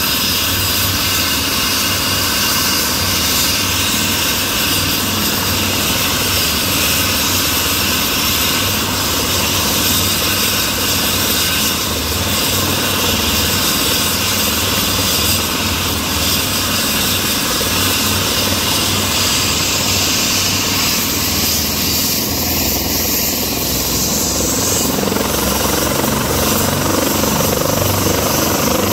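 Airbus EC135 air-ambulance helicopter running on the ground, its twin turbine engines whining steadily under the beat of the turning main rotor.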